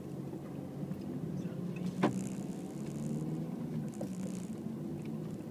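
Car engine running steadily, heard from inside the cabin while driving at low speed, with a single sharp click about two seconds in.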